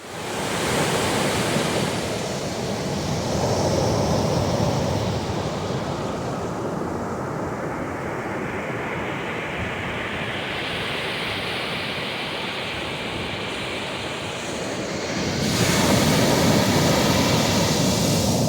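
Sea waves washing in and out, a continuous surf hiss that swells and eases, with a louder surge about three-quarters of the way through.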